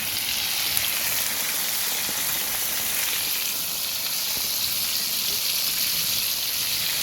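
Floured chicken pieces deep-frying in a pot of hot oil, a steady sizzle.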